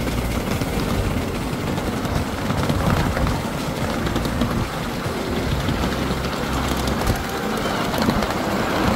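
Miniature railway train running along 7¼-inch-gauge track, heard from a riding car: a steady rumble of the wheels on the rails with scattered light clicks.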